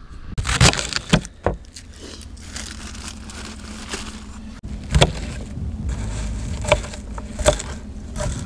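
Several sharp knocks and clatters over a steady low hum and hiss.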